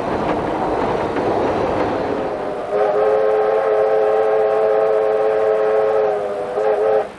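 Running noise of Victorian Railways R class 4-6-4 steam locomotive R 707 heard in the cab, then its steam whistle sounds one long steady blast of several notes together, starting about three seconds in, lasting about four seconds and cutting off sharply.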